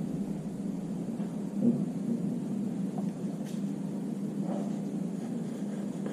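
Steady low background hum, with one soft bump a little under two seconds in.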